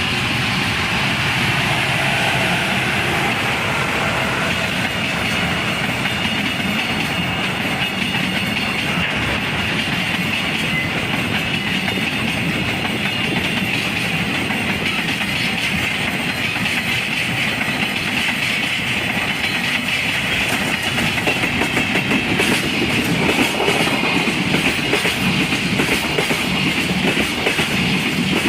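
Freight train passing, its wagons giving a long, steady rumble with wheels clicking over the rail joints. The clicking grows sharper and louder over the last several seconds.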